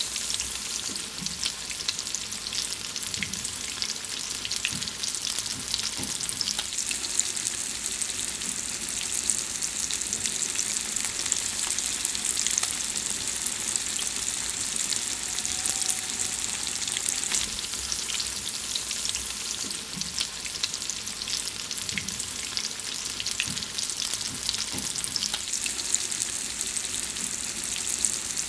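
Food frying in hot fat: a steady sizzling hiss, thick with small crackles and pops.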